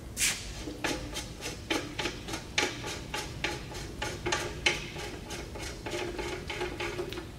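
Hand working the fastener on a surface grinder's metal wheel guard to open it: a quick, even run of short scraping clicks, about three a second, the first one the loudest.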